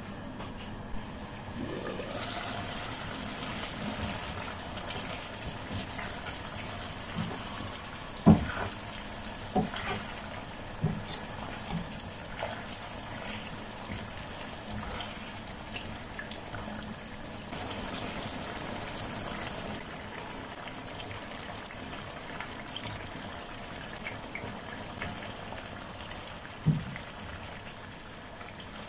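Chicken wings in tomato sauce sizzling and bubbling in a frying pan, a steady hiss. A wooden spatula stirring them knocks and scrapes against the pan now and then, with one sharp knock about eight seconds in the loudest.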